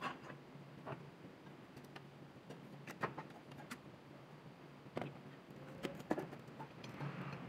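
Scattered sharp metal clicks and knocks of hand tools, such as a pry bar, working on an engine's cylinder head, a few strikes spread out with quieter handling in between.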